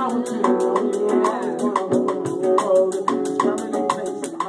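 Live band music: acoustic guitar chords over a drum kit, with a quick, steady beat of sharp percussion hits.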